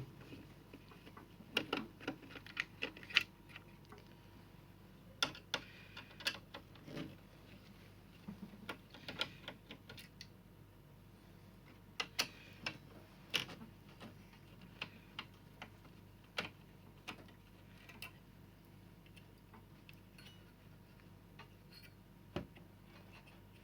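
A screwdriver undoing the screws that hold an LCD TV's power supply board: scattered light clicks and taps of the tool and small metal screws at irregular intervals.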